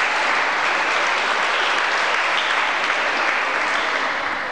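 Audience clapping steadily after a graduate's name is called, tapering off near the end.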